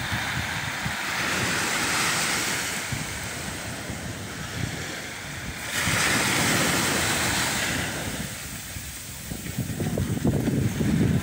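Small sea waves washing onto the beach, the hiss of the surf swelling twice, with wind buffeting the microphone near the end.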